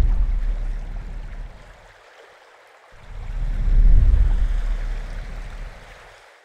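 Water surging in two slow swells of low rushing noise, each building and then fading away, with a short lull between them.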